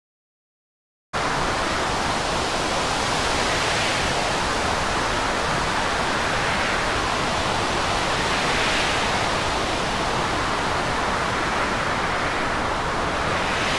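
Silence for about a second, then a steady rushing noise of storm wind and rough sea starts abruptly.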